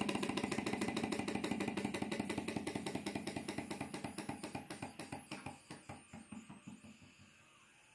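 Model alpha-type Stirling engine running down: its rapid, even mechanical clatter slows and fades as the flywheel coasts to a stop about seven seconds in.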